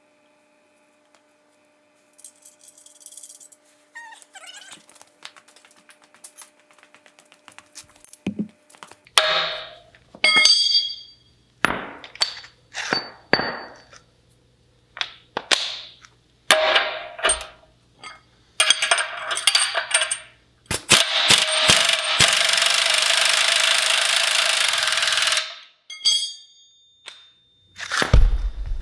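Pneumatic 3/4-inch drive impact wrench on a half-inch air line, fired in a string of short bursts and then run in one long burst of about four seconds, driving nuts home. Light metallic clinks of sockets and nuts being handled come first.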